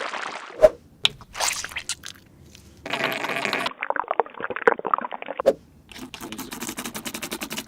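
Wet squishing and scraping of toothpaste slime being mixed and worked, in several short bursts with pauses and a few sharp clicks, then a run of quick crackly ticks near the end.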